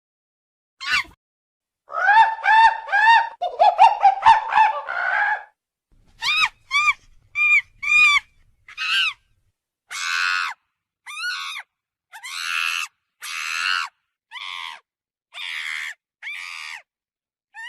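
A monkey calling: a single short call, then a quick run of high, arching cries, then a string of separate calls about a second apart that grow harsher and hoarser towards the end.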